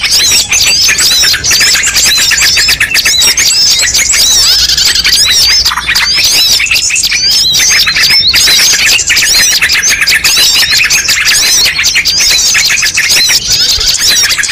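A dense mix of many small songbirds chirping, trilling and calling at once, the layered calls of a bird-luring recording (pikat). Rapid overlapping notes go on without a break, with brief thinner moments near the middle.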